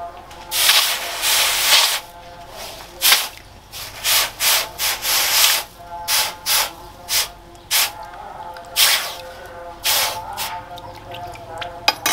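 Hot leaf-spring steel blade being quenched in a water trough, hissing and sizzling in about a dozen short rushes as it is dipped and drawn through the water, the first and longest lasting about a second and a half. This is the quench that hardens the blade.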